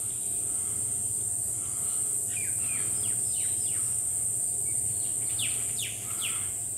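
A steady, high-pitched insect drone, with a bird calling in runs of quick falling notes about two seconds in and again near the end.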